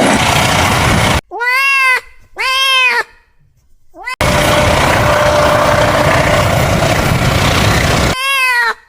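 Cat meowing three times, each meow rising then falling in pitch, cut abruptly between stretches of loud, even rushing noise from a running train: one burst of train noise at the start, two meows about a second in, a long run of train noise, and the third meow near the end.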